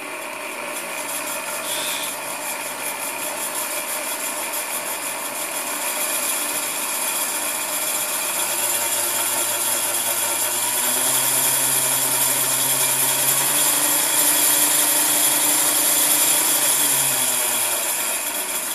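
Late-1940s Sunbeam Mixmaster Model 9 mixer's electric motor running with the juicer attachment spinning empty: a steady whine with a strong high hiss. It grows louder through the middle and eases off near the end.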